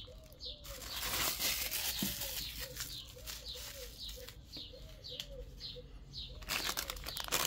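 Birds calling in the background: a steady run of short arched notes, about three a second, with thin higher chirps alongside, and stretches of rustling noise in between.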